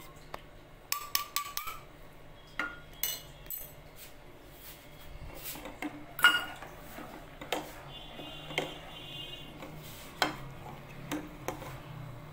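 A metal ladle clinking and scraping against a bowl and a steel saucepan as whipped coffee is scraped into hot milk and stirred. The clinks are irregular: a quick run of them about a second in, then single knocks, the loudest about six seconds in.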